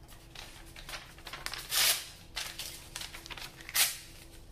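A sheet of paper being torn up by hand: several short ripping sounds, the longest about two seconds in and a sharp one near the end.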